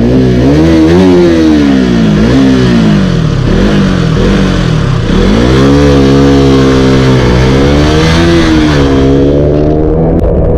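Sport motorcycle engine accelerating through the gears, its pitch climbing and dropping several times as it shifts up, then running at a steadier speed in the second half with small rises in pitch. Wind rush on the helmet microphone runs beneath it.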